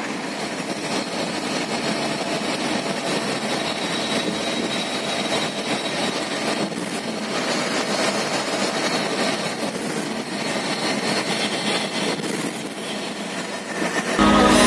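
Steady rushing engine and road noise of a moving sleeper coach, heard from inside its driver's cabin. Music comes in just before the end.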